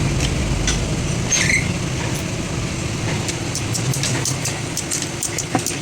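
Motor vehicle engine running steadily, its low hum fading over a few seconds, with light clicks and ticks over it in the second half.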